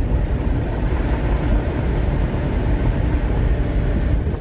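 Automatic car wash's air-dryer blowers passing over the roof: a loud, steady rush of air heard from inside the car's cabin.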